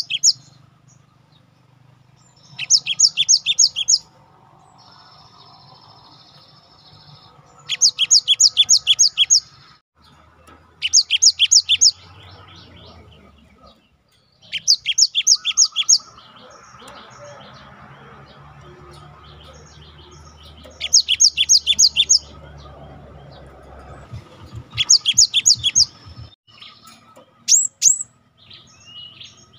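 Cinereous tit (gelatik batu) singing: rapid trills of sharp, high, falling notes in bursts of about a second and a half, repeated every three to four seconds, ending with a few separate high notes.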